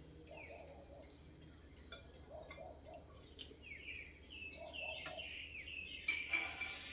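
Birds chirping: faint runs of short, downward-sliding chirps, with a few sharp clicks, growing busier near the end.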